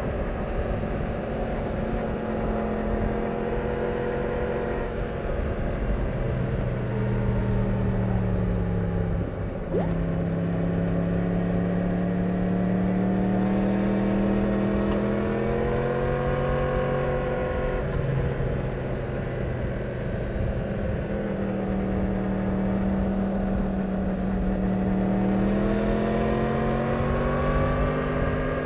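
Yamaha MT-10's crossplane inline-four on its stock exhaust, running under way on the road and recorded from a backpack. The engine note sinks slowly, dips briefly about ten seconds in, then climbs, eases off and climbs again as the throttle is worked.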